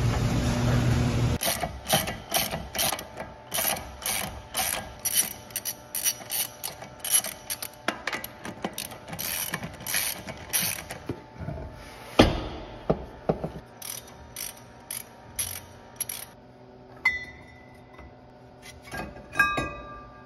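A hand ratchet clicks in quick strokes, about three a second, loosening a wheel's lug nuts. A steady mechanical noise cuts off just before it starts. There is a heavy thump about twelve seconds in, and near the end come clinks of metal with short ringing tones.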